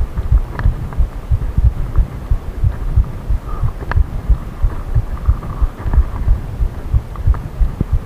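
Commencal Meta HT hardtail mountain bike rolling over a gravel track: irregular dull knocks several times a second, with a few sharp clicks.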